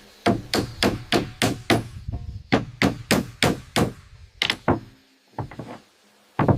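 Rapid series of hard knocks from a tool striking wood, about three to four blows a second. The knocks pause briefly about two seconds in and stop about five seconds in, with a single blow near the end.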